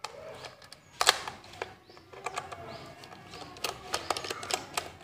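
Screwdriver and hands working on the plastic case of a cheap digital multimeter, opening its back cover: scattered small clicks and plastic rattles, with one sharper click about a second in.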